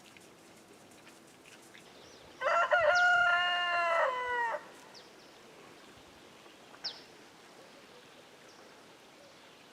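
A rooster crows once, about two and a half seconds in: a single call of about two seconds that drops in pitch at the end. A brief high chirp follows later.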